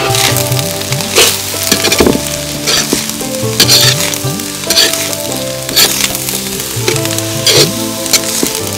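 Rice with shredded lemongrass sizzling as it is stir-fried in a large wok-style pan, with a spatula scraping and tossing it about once a second.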